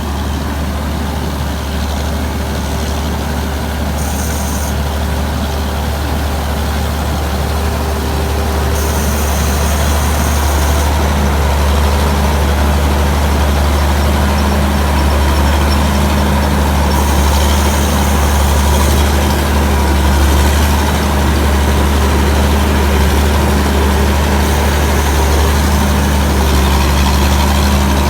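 Tamco Pro S9000 combine harvester's Hino J08C six-cylinder diesel engine running steadily with a deep, constant hum, growing slightly louder over the first several seconds.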